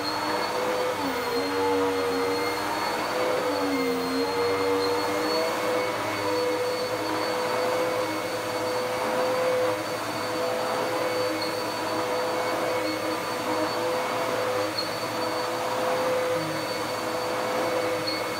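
Dirt Devil PowerMax Pet vacuum cleaner running steadily over carpet, a constant motor whine that dips in pitch briefly twice in the first few seconds.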